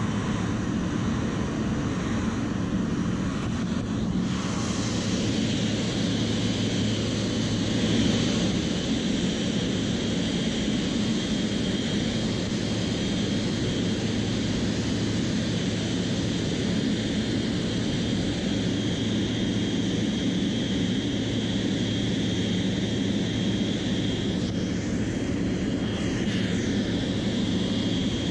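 Boeing 777-300ER's GE90 jet engines running as the airliner taxis: a steady rumble with a high, even whine.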